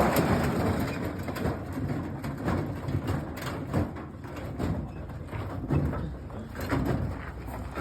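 Washing machine running, with hard objects knocking and clattering irregularly against the drum over a low motor hum.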